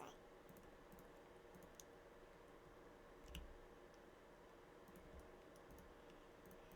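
Near silence with a few faint computer mouse and keyboard clicks over a low steady hum, one click a little louder about three and a half seconds in.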